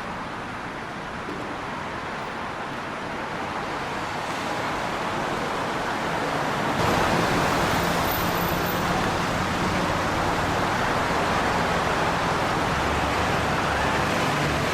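Steady rushing ride noise of a moving vehicle, with a faint low hum, slowly growing louder and stepping up in level about seven seconds in.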